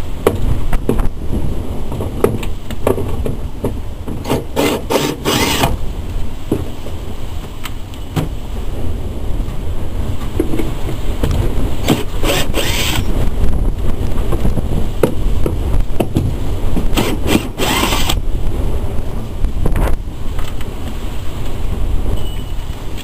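Wind buffeting the microphone in a steady low rumble. Three bursts of knocking and scraping, about five, twelve and seventeen seconds in, come from hand work on a motorhome's front support structure.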